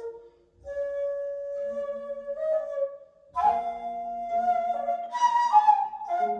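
Daegeum (Korean bamboo transverse flute) playing long held notes that bend into each other, breaking twice briefly for breath, over a quieter lower accompanying part.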